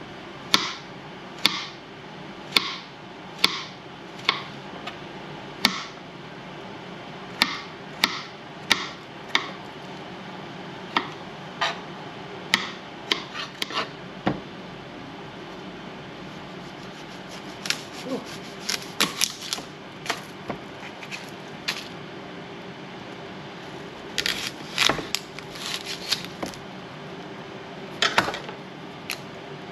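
Fillet knife chopping on a plastic cutting board: sharp knocks about one a second, first through garlic cloves, then more irregular clusters of cuts as an onion is sliced. A faint steady hum runs underneath.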